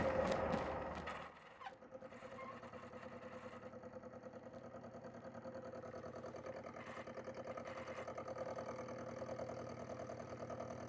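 Milling machine running at low speed while facing the steel face of a sledgehammer head. A louder cutting noise drops off sharply about a second in, leaving the machine's steady hum with a fast, even pulse.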